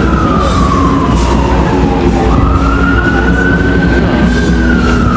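A siren wailing slowly over a loud low rumble. Its pitch falls for about two seconds, climbs back up, holds high for about two seconds, then starts falling again near the end.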